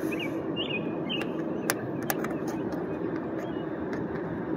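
Spade terminals being pushed onto a run capacitor's terminals by hand, two sharp clicks a little under half a second apart about one and a half to two seconds in, over a steady background rumble with a few short bird chirps.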